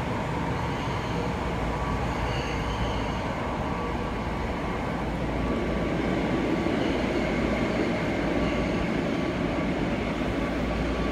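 Tokyo Metro subway train running, heard from inside the carriage: a steady rumble and hiss with a faint steady high tone.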